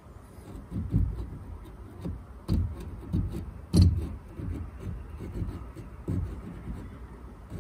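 Irregular dull knocks and handling bumps from a West System 610 epoxy cartridge gun as it is squeezed to push epoxy into a gap. The loudest knock comes a little before the four-second mark.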